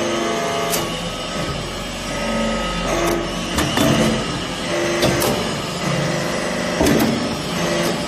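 Hydraulic metal-chip briquetting press working through a pressing cycle: a steady mechanical drone with shifting held tones, broken by a sharp metallic clank every second or two.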